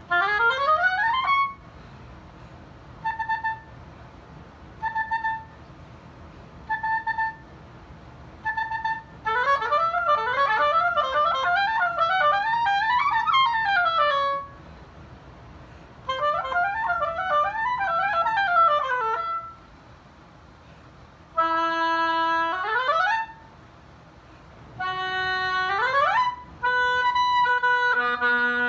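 Solo oboe playing unaccompanied: a quick upward run, four short separate notes, then two long passages of fast runs up and down, and near the end short held notes broken by quick upward runs.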